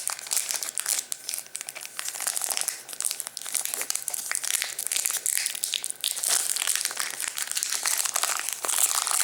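Foil wrapper of a Pokémon trading card booster pack crinkling as it is handled and opened by hand, with a continuous run of crackles.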